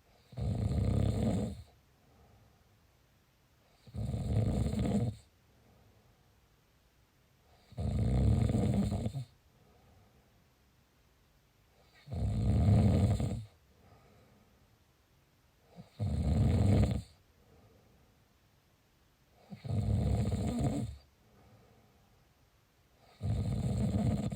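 Snoring: seven heavy snores, about one every four seconds, each lasting a little over a second, with a faint breath out between them.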